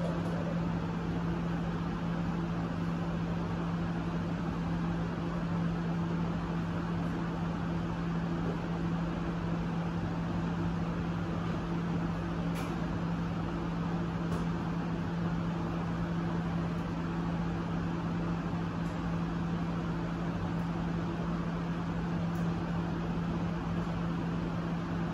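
Steady machine hum with a low even drone, like a fan or air-conditioning unit running, and a couple of faint ticks in the middle.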